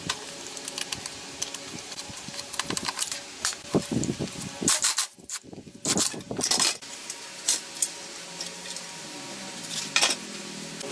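Metal tools and small metal parts clinking and knocking against each other while being handled: a run of sharp, irregular clicks, busiest about halfway through.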